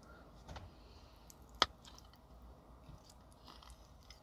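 A person quietly chewing food, with one sharp click about one and a half seconds in.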